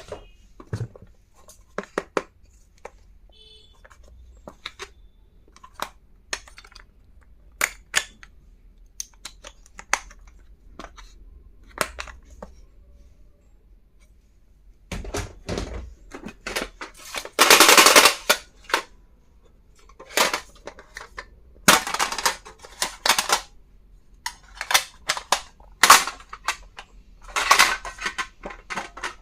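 Stationery items and their packaging handled by hand: scattered light clicks and taps, then from about halfway louder rustling and scraping bursts, the loudest lasting about a second.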